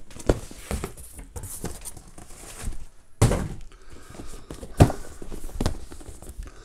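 Cardboard boxes being handled, with rustling and several dull knocks. The strongest knocks come about three seconds in and just before five seconds.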